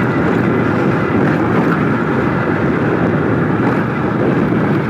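Motorcycle running steadily along a dirt off-road trail, its engine noise mixed with wind rushing over the microphone.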